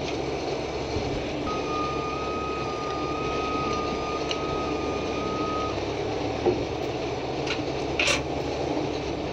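A steady high electronic warning tone, like a truck's backup alarm, held for about four seconds over the low steady running of a heavy truck's diesel engine. A couple of short clicks near the end.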